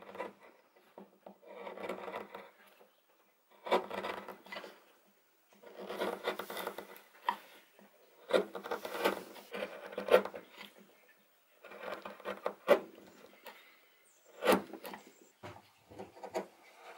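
Steel carving gouge paring across the grain of oak by hand, hollowing a spoon bowl: a series of short scraping cuts, each lasting a second or two, with pauses between them and a few sharp clicks as shavings break off.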